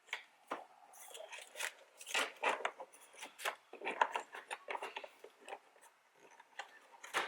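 Hard plastic door-trim parts being handled and fitted: an irregular string of short clicks and scraping rubs as the LED light's cable is worked through the door handle cover.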